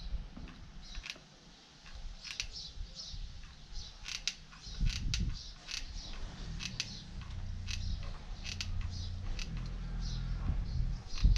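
Handheld stapler snapping staples through carpet into a cardboard frame: a long series of sharp, irregular clicks, roughly one or two a second.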